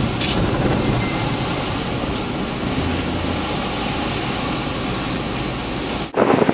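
Steady rushing road and wind noise inside a vehicle driving in strong storm winds. About six seconds in it cuts out for a moment and comes back as louder, gustier wind buffeting the microphone.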